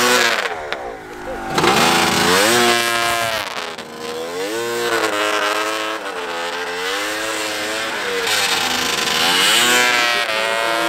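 Arctic Cat 600 two-stroke snowmobile engine revving up and down as the sled carves through deep snow. The revs pick up sharply about a second and a half in, then the pitch keeps rising and falling every couple of seconds.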